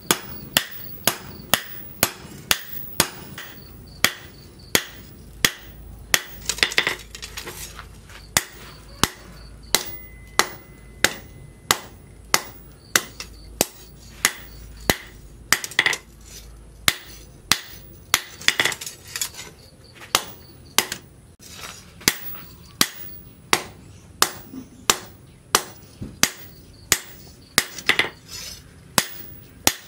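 Hand hammer forging a red-hot steel machete blank on a cylindrical steel post anvil: sharp, even blows about twice a second.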